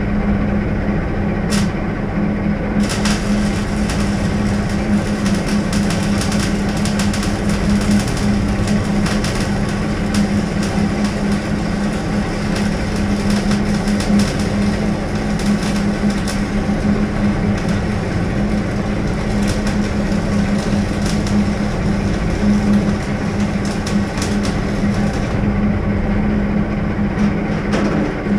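Electric arc welding crackling for about twenty seconds, starting about three seconds in and stopping a few seconds before the end. Underneath, the steady roar of a gas torch preheating a cast anvil for repair welding.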